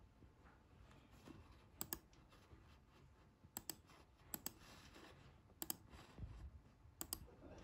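Five sharp double clicks of a laptop's pointer buttons, irregularly spaced, over faint room hiss.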